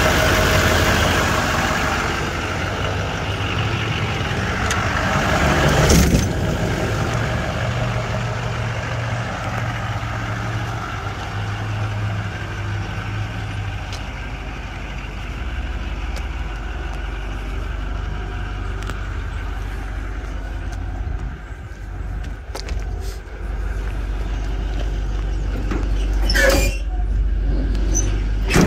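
A Chevrolet C4500's 6.6-litre turbo-diesel V8 idling with a steady low hum. There is a sharp click about six seconds in. Near the end comes a louder metal clatter as the latch of a utility-body compartment door is popped and the door swung open.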